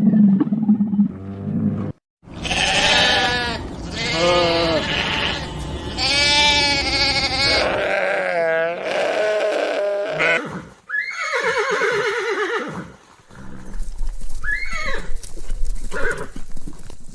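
Goats or sheep bleating: after a brief break about two seconds in, a run of several long, wavering bleats follows one after another.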